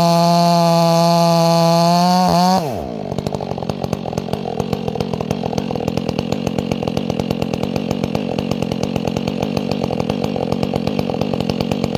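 Chainsaw running at full throttle, then dropping to a fast, pulsing idle about two and a half seconds in.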